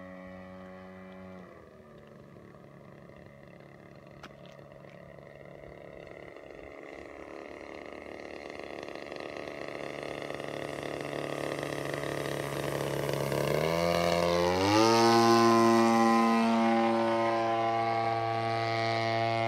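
Radio-controlled model airplane's engine running in flight, throttled back about a second and a half in, then growing steadily louder as the plane comes closer and revving up sharply about fourteen seconds in. A single faint tick about four seconds in.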